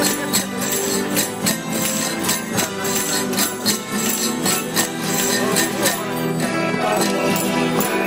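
A street band of guitars, other plucked strings and an accordion playing a traditional folk tune, with jingling percussion keeping a beat about twice a second that stops about six seconds in.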